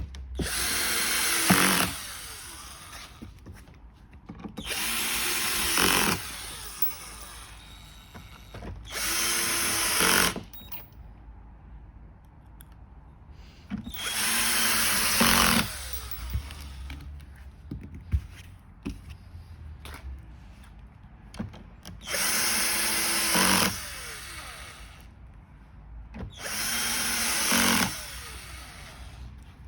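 Cordless power drill driving screws: six short runs of its motor whine, each lasting a second or two and cutting off suddenly, with quiet handling noises between runs.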